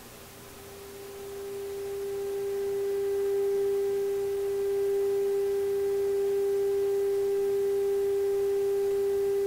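Steady pure test tone from a Marconi 201A vacuum-tube radio's speaker. It is the signal generator's modulation coming through the set's IF stages. It swells louder over the first three seconds as the generator is tuned onto the IF passband, then holds at full strength, with the IF peaking near 453 kHz instead of the intended 462 kHz.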